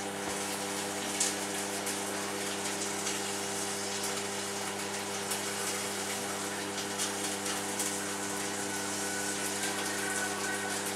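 Microwave oven running with a steady electrical hum and fan noise while an egg cooks inside, with a few faint crackles.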